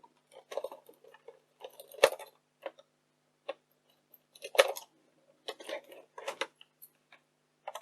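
Plastic clicks, knocks and small rattles from handling and taking apart a Video 8 camcorder, with two louder knocks about two seconds and four and a half seconds in.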